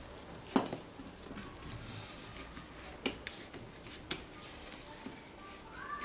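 Hands rounding soft yeast dough into a ball on an oiled wooden board: quiet squishing of the dough, with three light taps about half a second, three seconds and four seconds in.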